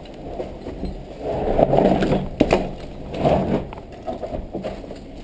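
Footsteps scuffing and crunching on a rubble-strewn concrete spiral staircase, with clothing and gear rustling close to the camera and a single sharp knock about two and a half seconds in.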